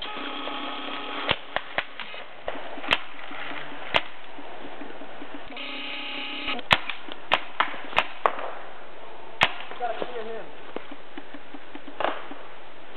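Paintball markers firing: about a dozen sharp single pops at uneven intervals, some in quick pairs.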